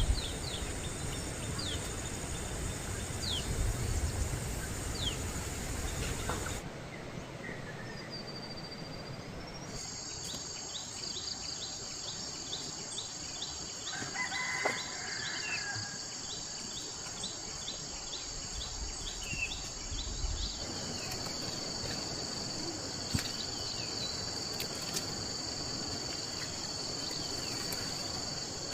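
Countryside ambience of insects trilling steadily in a high band, with many short bird chirps over a light background hiss. The insect trill drops out for a few seconds about seven seconds in, then returns.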